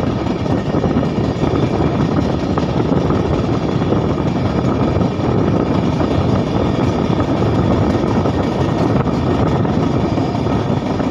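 Steady rush of wind and wheel-on-rail rumble from a fast-moving passenger train, heard from outside the coach side at an open door or window.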